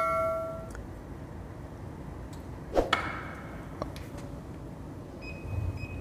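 The ringing tail of a notification-bell sound effect fading out in the first second, then a single clink with a short ring about three seconds in and a few faint clicks.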